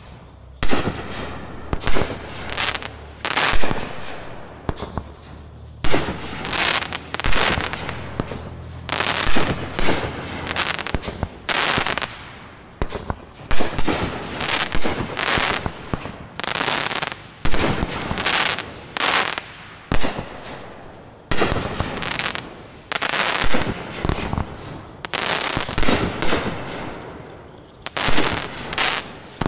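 Two large-bore consumer firework cakes with 2-inch shots firing at the same time: launch thumps and loud shell breaks come about once a second, often overlapping, with crackling between the bangs.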